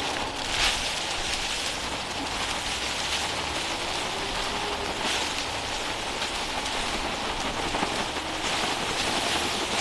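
Mower-shredded dry leaves pouring out of a lawn mower's collection bag as it is emptied and shaken: a steady rustling hiss that swells a few times as the bag is shaken.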